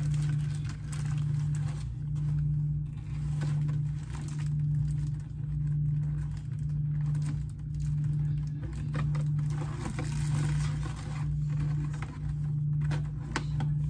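Plastic bag crinkling in short bursts as garlic breadsticks are pulled out of it, over a steady low hum that swells and fades about once a second.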